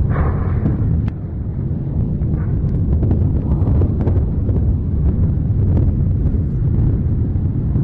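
A deep, continuous rumble, loudest in the bass, with a few faint crackles through it.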